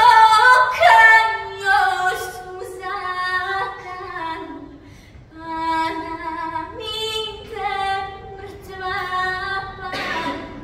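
A young woman singing solo and unaccompanied, a traditional Bosnian sevdalinka, in long held phrases that glide between notes.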